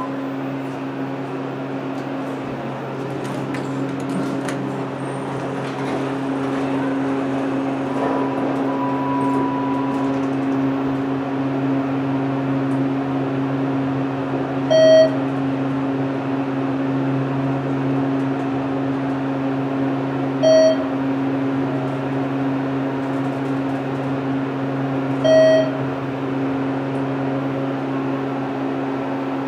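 ThyssenKrupp hydraulic elevator car travelling up, with the pump and motor running as a steady hum. Three short electronic beeps sound about five seconds apart as the car passes floors.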